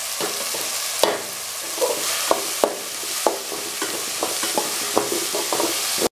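Coarsely crushed turkey berries frying in hot sesame oil with a steady sizzle, while a perforated metal ladle stirs them and clicks against the metal pot about twice a second.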